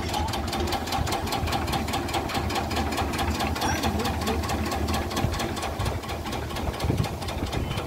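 Tractor-driven multi crop cutter (chaff cutter) running as it chops paddy straw, its cutter head clattering in a rapid, even rhythm over the steady low running of the Mahindra 265 DI Power Plus tractor's diesel engine. The engine is held at a low speed of about 1000 rpm.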